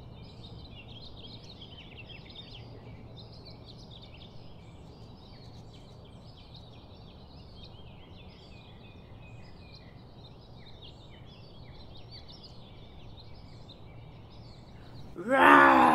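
Many small birds chirping and twittering in a continuous chorus, over a faint low hum. Near the end a loud, drawn-out moan-like call starts, falling in pitch.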